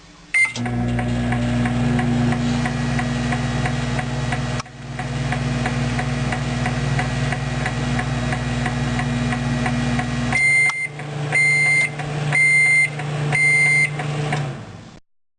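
Microwave oven: a beep, then the oven running with a steady low hum for about ten seconds while it heats the spent fluorescent tube in water, then stopping with four high end-of-cycle beeps as the fan hums on briefly.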